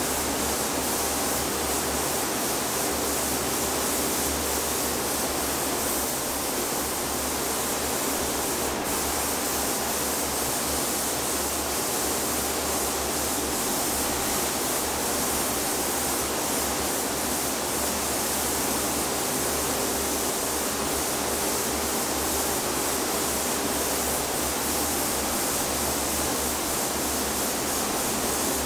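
Steady, even rush of air in a paint spray booth: the booth's ventilation running while a spray gun hisses out a coat of blue paint onto the grill.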